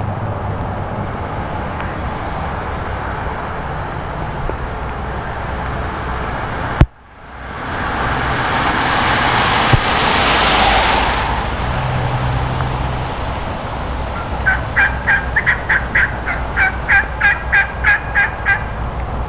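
A steady low rumble, broken by a sharp click about seven seconds in and followed by a few seconds of rushing noise. Near the end comes a run of about a dozen evenly spaced turkey yelps, about three a second, growing louder and then easing off.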